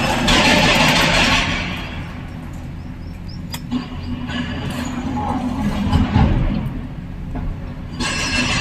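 Diesel engine of heavy machinery running, louder for about the first second and a half, then steadier and quieter, with music over it.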